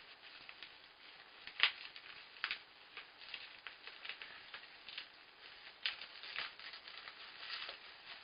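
Light plastic items being handled: irregular small clicks and rustling, with two sharper clacks about a second and a half in and near six seconds.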